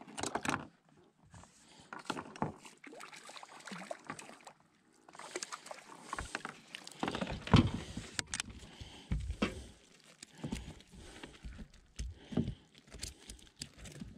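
Splashing and knocking as a hooked rainbow trout is brought to the side of a kayak and scooped into a landing net. The loudest splash and knock comes about halfway through, followed by irregular knocks and rustles of the net and gear against the kayak while the fish is handled.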